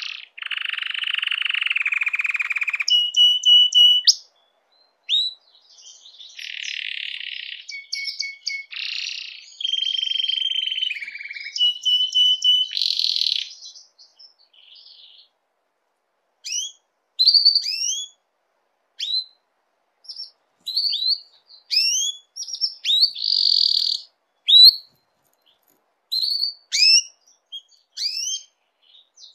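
Domestic canary in breeding condition singing: long buzzy rolls and steady trills in the first half, then, after a short pause, quick phrases of rising, sweeping notes separated by brief silences.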